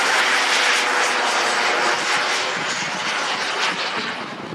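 Jets Munt Merlin M90 turbine engine of a 1/7-scale TNT Models F-16 radio-controlled jet in flight, a steady rushing jet noise passing overhead that grows fainter over the last couple of seconds as the model moves away.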